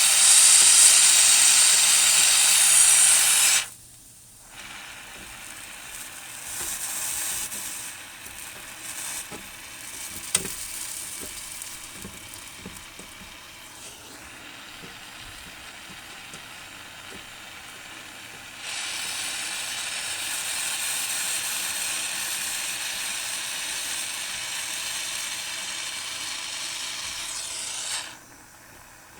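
Gas soldering torch flame hissing on copper. It cuts off about four seconds in, a quieter stretch with a few light clicks follows, and the hiss starts again about two-thirds of the way through and runs for about nine seconds before stopping.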